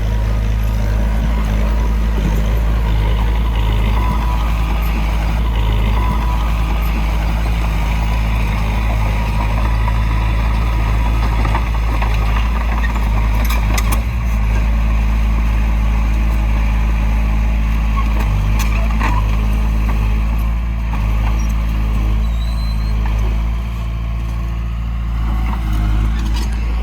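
Heavy earthmoving machinery's diesel engine running steadily under load, with a couple of short knocks partway through.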